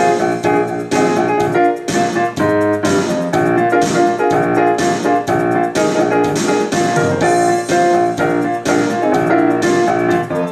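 Electric piano or keyboard music: chords played over a steady rhythmic beat.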